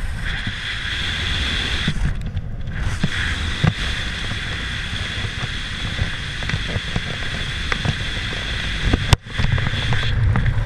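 Wind rushing over the camera microphone under an open parachute canopy: a steady rumbling buffet with a few small knocks and a brief dropout near the end.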